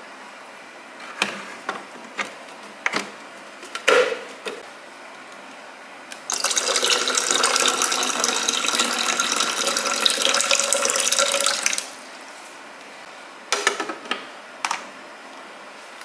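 Water pouring into the clear plastic water tank of a Breville Bambino espresso machine, a steady splashing fill lasting about five and a half seconds. It is preceded by a handful of sharp plastic knocks and clicks from handling the tank, and a few more knocks follow after the pour.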